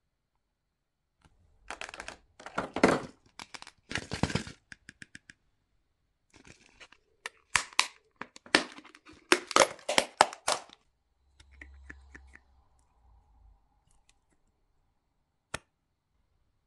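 Crinkling and tearing of the wrapper as a surprise egg is unwrapped by hand, in irregular bursts of crackle. A single sharp click comes near the end.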